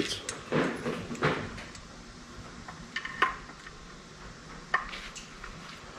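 A handful of light metallic clicks and clinks as aluminum pop rivets are handled and pushed into their holes in the Bridgeport mill motor's housing.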